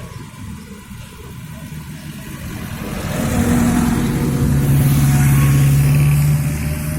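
A vintage motor vehicle approaching and driving past, its engine growing louder to a steady peak a little past the middle, then beginning to fade near the end.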